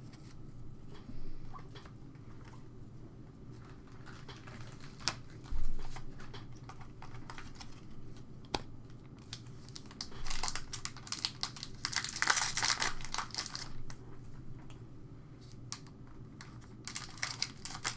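Trading-card pack wrapper crinkling and tearing as it is opened by hand, in a long spell from about ten to thirteen seconds in and a shorter one near the end. Before that, scattered light clicks of cards being handled and a single thump about five seconds in.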